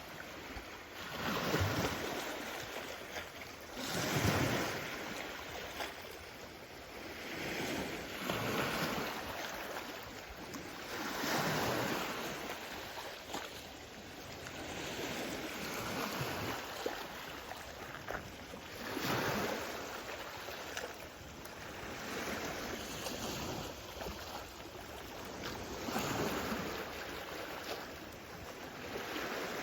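Small waves on the Königssee lake washing in, rising and falling in swells every few seconds.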